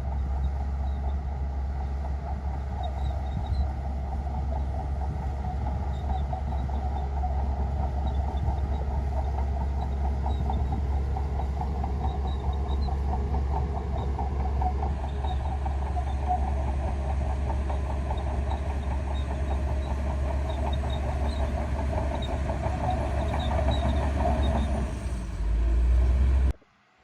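Shantui crawler bulldozer's diesel engine running steadily under work. Near the end it briefly dips and changes, then the sound cuts off abruptly.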